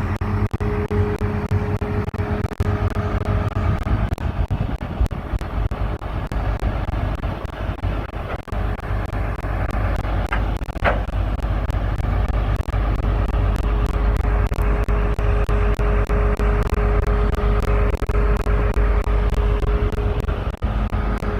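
Combine's diesel engine running steadily with a constant whine, getting a little louder partway through, as the combine is driven onto a trailer.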